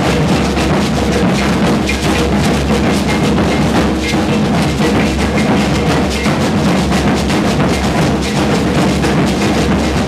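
Loud dance music driven by busy drums and percussion, with a steady fast beat and a heavy bass.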